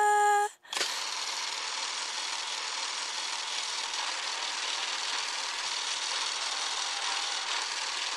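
Music cuts off about half a second in, then a steady hiss starts and holds evenly.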